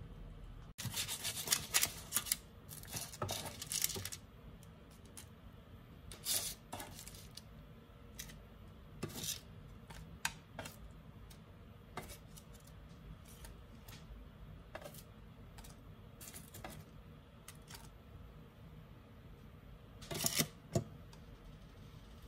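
Kitchen tongs clicking and scraping on a parchment-lined baking tray as food is lifted off and set onto a plate: scattered clicks and rustles, busiest near the start, with a louder cluster of clinks near the end.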